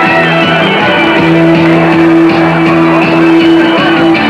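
Loud rock music with guitar and a steady beat.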